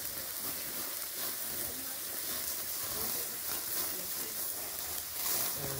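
Scallops in their half-shells with oil sizzling steadily over a flaming charcoal grill, with a light crackling.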